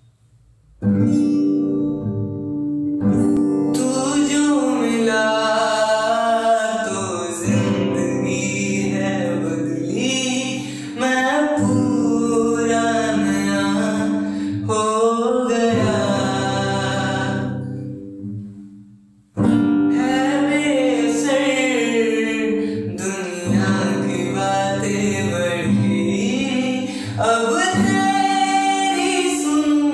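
A solo voice singing a slow song over guitar accompaniment, with a short break about two-thirds of the way through before the singing starts again.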